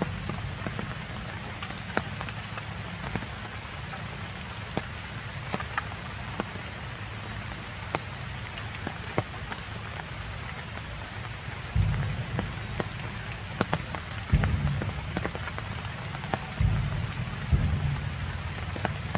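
Steady rain, with many scattered drop ticks and a few low rumbles from about two-thirds of the way in.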